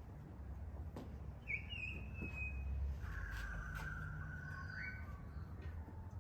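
A bird whistling two long notes: a higher one about a second and a half in, then a lower one held for nearly two seconds that turns upward at its end. A steady low rumble and a few faint clicks lie underneath.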